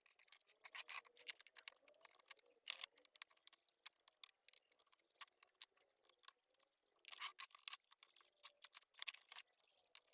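Faint, irregular small clicks and rattles of hands and tools working on an equalizer's chassis to take out its circuit board, with a few louder clusters of clicks.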